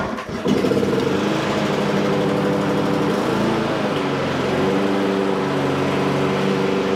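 Rotary lawn mower's RV150 petrol engine pull-started on choke from cold, catching on the first pull about half a second in and then running steadily; its speed wavers briefly around three seconds in and settles again.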